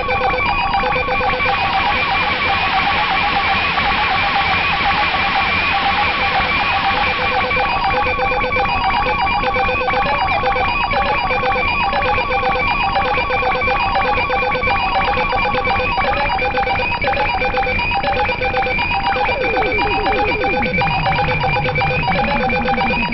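Buchla and Eurorack modular synthesizer music: fast repeating bell-like and plucked tones layered at several pitches. A hiss swells over the first few seconds and fades out by about eight seconds in. Near the end, a tone slides down in pitch and settles into a steady low drone.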